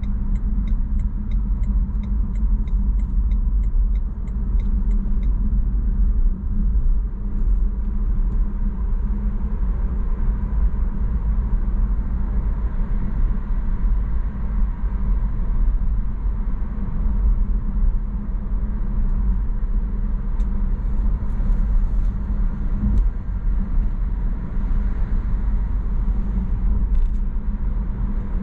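Road and engine noise heard inside the cabin of a moving car: a steady low rumble. A rapid, even ticking, like a turn-signal indicator, runs for the first five seconds or so as the car leaves a roundabout.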